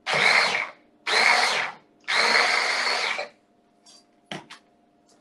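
Mini food processor pulsed three times, its motor running in short bursts of about a second each to chop a chunky mushroom and chestnut burger mixture, the third burst the longest. A couple of light clicks follow near the end.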